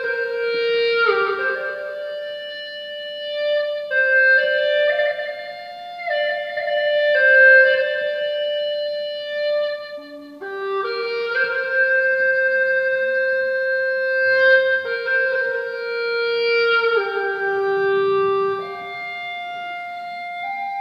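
A solo wind instrument playing a slow melody of long, steady held notes that step up and down in pitch, with a brief pause about halfway through.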